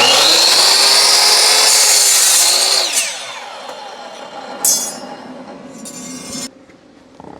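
Power tool cutting steel flat bar: its motor runs loud under load for about three seconds, then its pitch falls as it winds down. Two short bursts of the tool follow, near five and six seconds.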